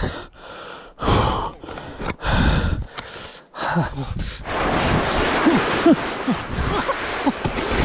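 Heavy, gasping breaths in short bursts, then from about halfway a steady scraping hiss of a body and backpack sliding down a snow slope, with a few faint short squeaks.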